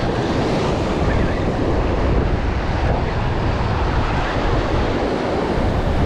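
Surf breaking against jetty rocks in a steady wash, with wind buffeting the microphone.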